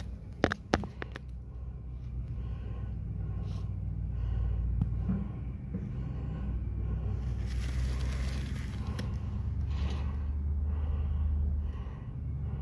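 Moving truck's engine running as the truck manoeuvres slowly, a steady low rumble that builds and then drops away near the end. Two sharp clicks about half a second in and a brief hiss about eight seconds in.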